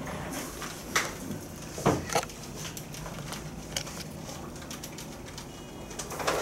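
A few scattered short clicks and light knocks over a steady low hum of room noise.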